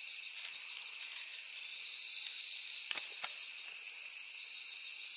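Night-time insect chorus, crickets and the like, calling in a steady high-pitched trill made of several even tones. Two faint clicks come about three seconds in.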